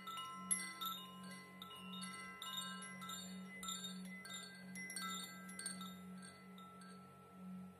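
Wind chime tinkling: many small random strikes, each ringing high and clear, thinning out and dying away over the last couple of seconds, over a steady, gently pulsing low hum.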